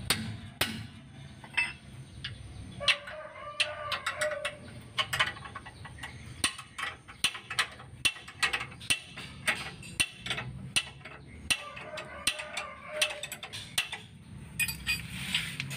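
Sharp, irregular metal clicks of a hand wrench working the bolts of a Daihatsu Gran Max's left engine mount, loosening it for removal. A rooster crows twice in the background, each crow lasting about two seconds.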